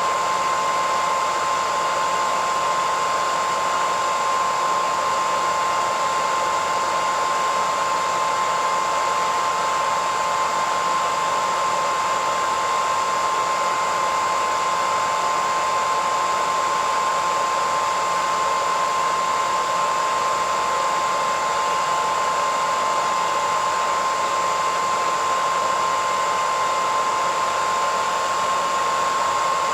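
Electric hairdryer running steadily: an even rush of blown air with a constant motor whine, no change in speed.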